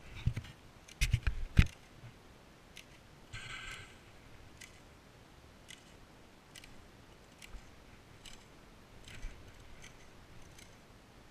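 Airsoft pistol being handled and reloaded: a few sharp mechanical clacks in the first two seconds, a short scraping rattle a little after three seconds, then scattered faint clicks.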